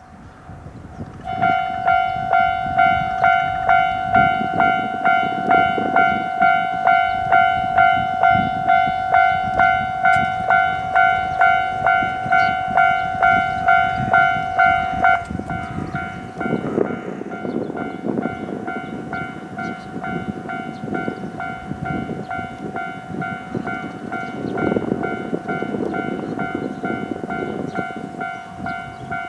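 Japanese level crossing warning bell ringing its repeated 'kan kan' signal, about two strikes a second, starting about a second in. About halfway through the strikes become quieter and less distinct, and a train's running noise rumbles under the ringing.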